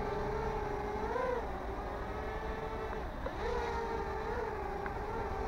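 Small toy quadcopter drone's motors and propellers whining at a steady pitch, which rises briefly about a second in, then dips and rises again a little after three seconds in as the throttle changes.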